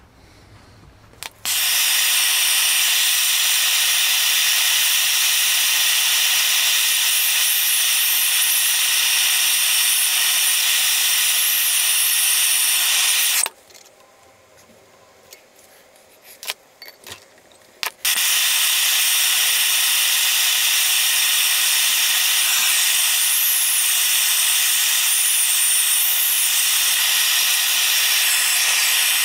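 Handheld MAP gas torch burning with a steady, loud hiss as it heats a steel chisel blank clamped in a vise. The hiss cuts out about 13 seconds in, leaving a few sharp metal clicks as the bar is bent with a wrench, and the torch hiss starts again about 18 seconds in.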